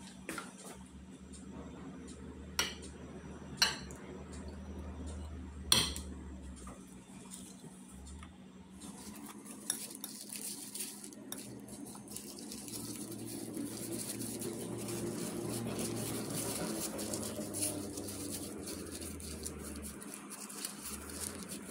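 Almonds being handled and stirred by gloved hands in a metal mesh strainer: a few sharp clicks and knocks in the first six seconds, then steady rustling and light clinking of the nuts against the wire mesh, loudest in the second half.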